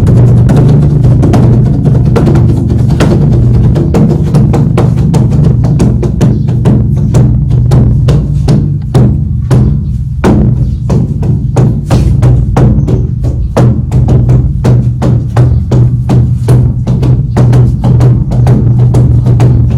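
Korean drum (buk) beaten in a fast, dense run of strokes over a deep, steady booming resonance. The strokes thin out briefly near the middle, then come thick and fast again.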